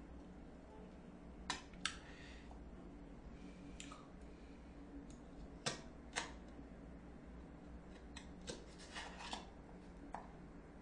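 Metal utensils clicking and scraping lightly against plates and bowls while eating, in scattered faint clicks with a small cluster near the end.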